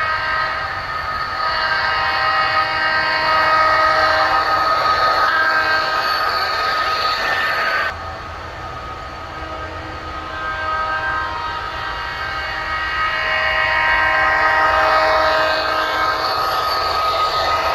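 Diesel locomotive horn blowing long chime blasts over the rumble of a running train, with the sound dropping abruptly about eight seconds in.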